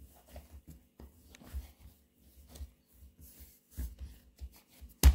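Hands kneading and pressing shortcrust pastry dough on a floured work surface: soft, irregular rubbing and patting. Near the end come two sharp thumps, about a quarter of a second apart, the loudest sounds.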